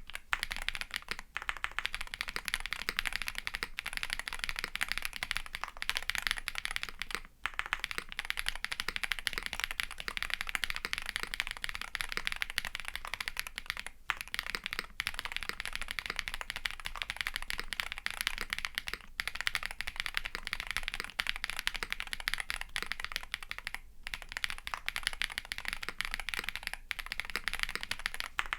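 Fast continuous typing on a kbdfans Tiger80 Lite custom mechanical keyboard with a polycarbonate plate, gasket mount and Krytox-lubed Bolsa ZAKU switches under KEYKOBO keycaps. The clicks run together, with a few brief pauses.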